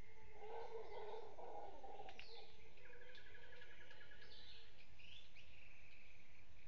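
A howler monkey's low, rough call, starting about half a second in and lasting about a second and a half, amid forest birds calling: short high chirps, sweeping calls, and a rapid pulsed trill about three seconds in.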